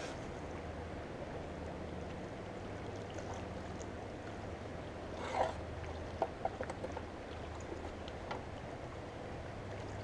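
River water gently lapping and gurgling around a small boat, a steady low wash. One short louder sound about five seconds in, followed by a few faint clicks.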